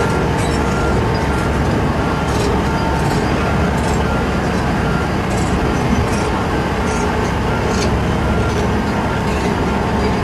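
Heavy tracked earthmoving machines' diesel engines running hard under load while pulling a very heavy mining-machine carbody. A short high beep repeats about twice a second, with scattered metallic clanks and squeaks.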